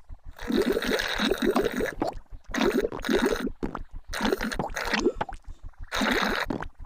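Noisy drinking of Pinky Ponk juice: bubbly, gurgling slurps in four bursts, each a second or less long, over a faint low pulsing of about four or five beats a second.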